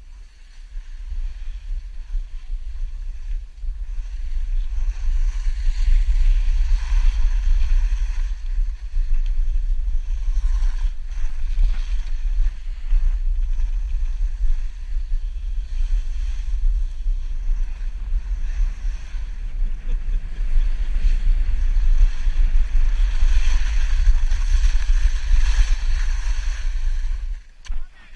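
Wind buffeting the microphone of a moving skier's camera, a heavy rumble, over the hiss and scrape of skis sliding on snow. It builds up over the first few seconds and drops away sharply near the end.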